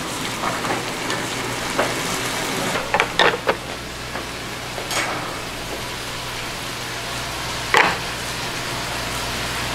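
Kimchi stew and soybean-paste stew boiling hard in hot earthenware pots, a steady sizzling bubble, with a low hum under it. A few sharp clinks come as the metal pot tongs grip the pots and set them down, the loudest about eight seconds in.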